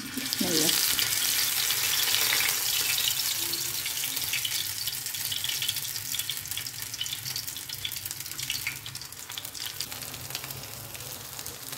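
Meat kebab patties frying in a flat black pan on a gas burner: a steady sizzle with many small crackles. It is loudest in the first few seconds and eases off gradually.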